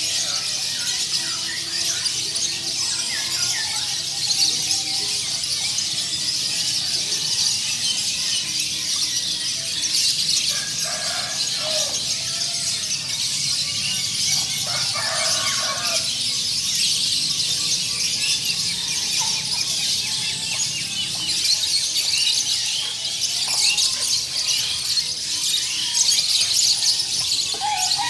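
Many caged songbirds of mixed species singing at once: a dense, steady, high-pitched chorus of chirps and calls, with a few lower calls standing out now and then.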